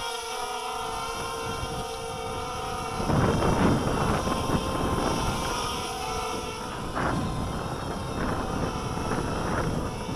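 250-size FPV racing quadcopter's electric motors and propellers whining steadily in a low hover. From about three seconds in, bursts of wind noise on the microphone come in over it.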